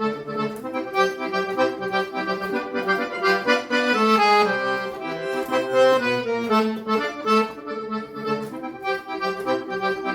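Accordion playing an instrumental melody over rhythmic bass and chord accompaniment, in a Brazilian forró style.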